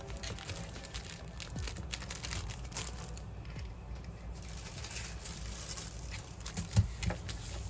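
Packaging being handled: rustling and crinkling with small clicks and knocks, and one sharper knock about seven seconds in.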